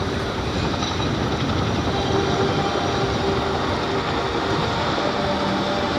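CH-147F Chinook tandem-rotor helicopter flying past: a steady rumble of its rotors and turboshaft engines, with faint steady whining tones above it.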